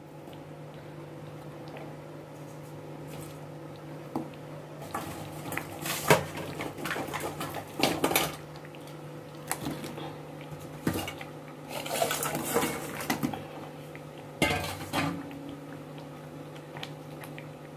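A metal spoon clinking and scraping against a metal kadai as fried chicken pieces are added to thick gravy. The knocks come at irregular intervals over a steady low hum.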